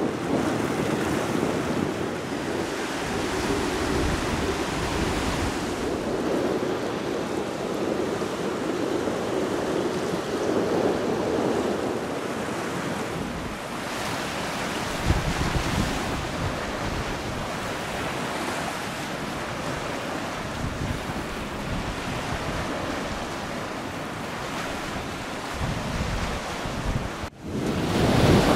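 Baltic Sea surf washing steadily onto a sandy beach, with wind gusting across the microphone in low rumbles. The sound briefly cuts out about a second before the end, then returns louder.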